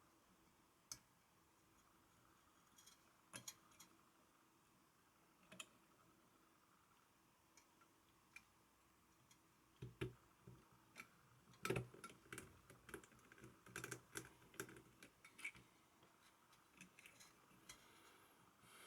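Scattered light clicks and taps of small tools and screws being handled on a graphics card during reassembly. A few sit in the first half and a dense run comes between about 10 and 16 seconds in.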